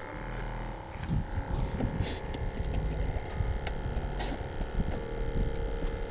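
Soft knocks and rustles of hands handling a caught fish and fishing gear, over a steady low hum.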